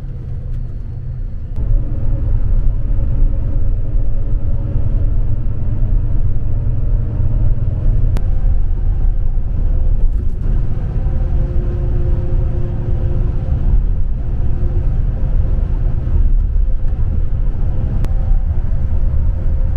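Engine and road rumble of a moving express coach, heard from inside the passenger cabin. It steps up in loudness about a second and a half in, with a faint steady whine over the rumble.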